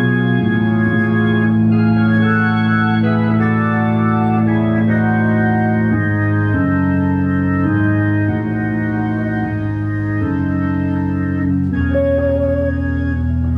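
Hammond organ playing slow sustained chords live, the chord changing every second or so, with a wavering high note near the end.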